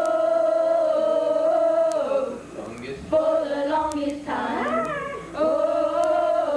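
A group of boys singing a cappella, holding long wordless notes of about two seconds each, with short breaks between phrases.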